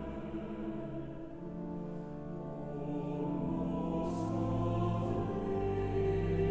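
Slow choral music: voices holding long, sustained chords that shift every second or two.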